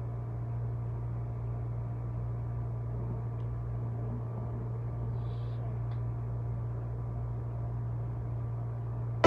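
Steady low hum with a faint hiss, like room tone from a fan or appliance, with two faint ticks.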